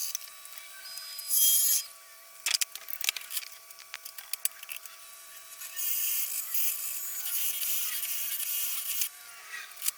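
Wood-turning power tool running with a steady whine, with bursts of loud hissing tool-on-wood noise about a second in and again from about six to nine seconds, and scattered clicks and knocks between.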